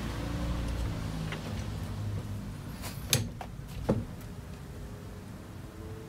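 A few sharp metallic clicks and knocks from a socket and breaker bar being fitted to and pulled on a steering wheel's centre bolt, the clearest about three and four seconds in, over a faint steady low hum.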